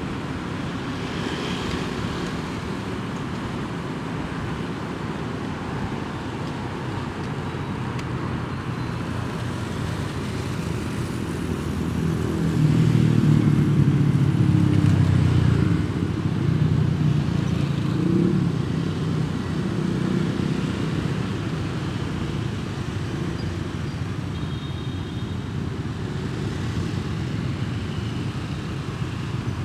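Road traffic heard from a moving motorbike: a steady rumble of engines and tyre and road noise from the surrounding scooters and motorbikes. It swells into a louder low rumble for a few seconds around the middle.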